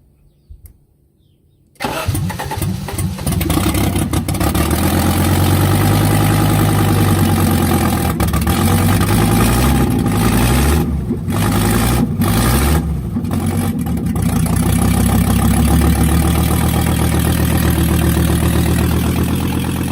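Audi 4000 Quattro's five-cylinder engine catching about two seconds in on its first start after the fuel injection and intake were rebuilt, then running loud with no exhaust fitted. The revs rise and fall a few times around the middle before it settles to a steady run.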